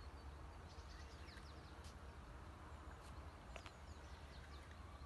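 Near silence: faint outdoor ambience with a low rumble and a few faint, high, short bird chirps.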